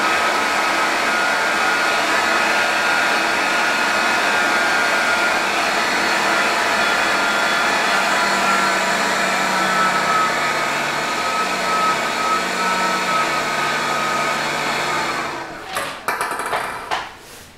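Electric fan blowing air up a PVC ball-levitation tube, running steadily with a whine that drops slightly in pitch partway through. About fifteen seconds in it runs down and stops, followed by a few knocks.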